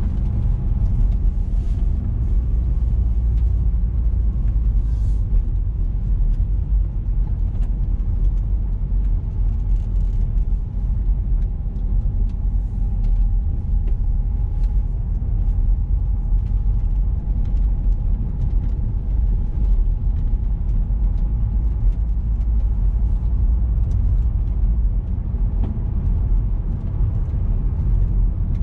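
Car driving along a road: a steady low rumble of tyre, road and engine noise, with faint clicks now and then.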